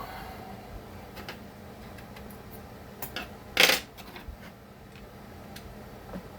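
Small metal clicks and clinks of tools and chainsaw parts being handled during disassembly, with one short, loud burst about three and a half seconds in.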